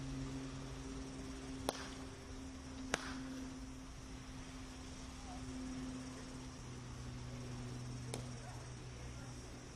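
Cricket bat striking the ball in the practice nets: two sharp cracks, about a second and a half apart, near the start and a fainter one near the end, over a steady low hum.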